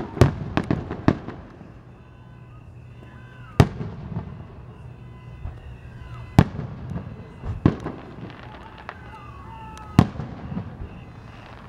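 Aerial fireworks shells bursting: a quick cluster of sharp bangs in the first second, then single reports every two to three seconds.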